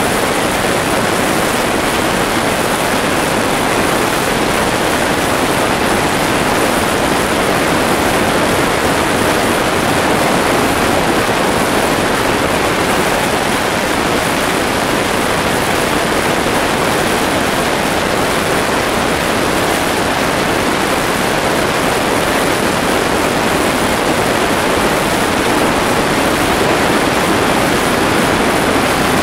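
Steady, even noise of a de Havilland Canada DHC-6 Twin Otter in flight, heard from inside the cabin: its PT6A turboprop engine and propeller running at a constant cruise setting, mixed with the rush of airflow.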